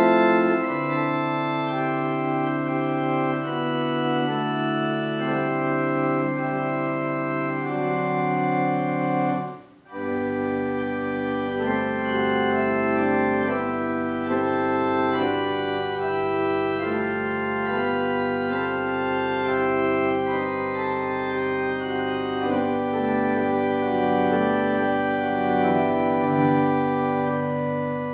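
Organ playing slow, held chords, with a brief break about ten seconds in before the music resumes.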